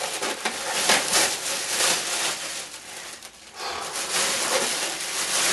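Thin plastic bag crinkling and rustling as it is pulled off a new electronic snare drum pad. There is a short lull a little after three seconds in.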